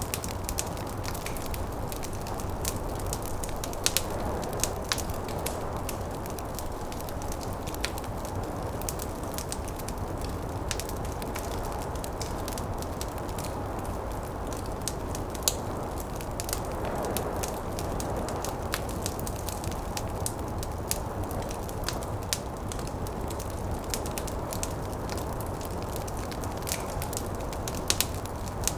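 Wood fire crackling, with irregular sharp pops scattered throughout, over a steady low rush of snowstorm wind that swells briefly about halfway through.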